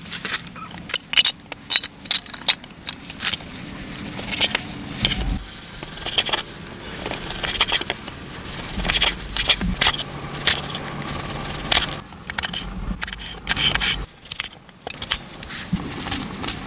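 A folding knife cutting raw pork and then, near the end, an onion on a wooden cutting board: irregular sharp knocks of the blade on the board, with scraping between the cuts.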